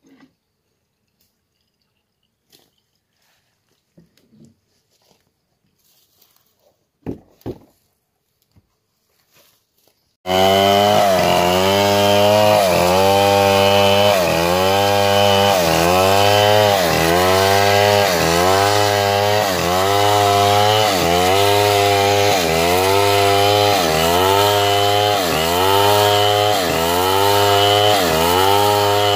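Faint scattered handling knocks, then about a third of the way in a Stihl two-stroke chainsaw starts running loud at full throttle, rip-cutting a log lengthwise into a plank. Its pitch sags and recovers about once a second as the chain bites into the wood.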